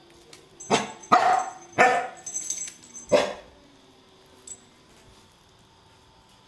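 Pet dog barking at a vacuum cleaner, several sharp barks in the first half.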